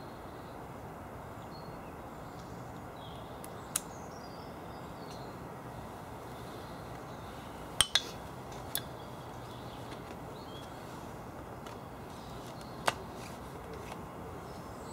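A few sharp clicks from handling an MPP 5x4 large-format field camera and its film holder and dark slide: single clicks about four seconds in and near the end, and two close together about eight seconds in. Under them is a steady, quiet woodland background with a few faint bird chirps.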